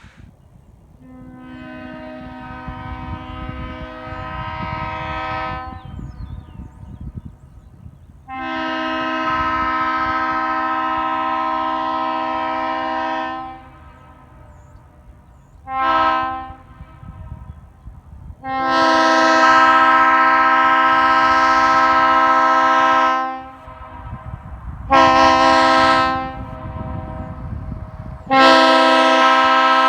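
Leslie S2A two-chime train air horn, the deepest-toned Leslie two-chime, blown six times with a low two-note chord. There are three long blasts of about five seconds each, two short ones and a last that begins near the end. The first blast comes in softly and builds, while the rest start and stop abruptly at full strength.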